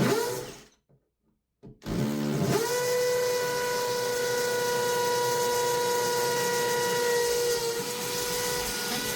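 Power drill boring holes through shower tile: a short run that stops about half a second in, then the motor spins up about two seconds in and holds a steady high whine for about seven seconds, dipping slightly near the end.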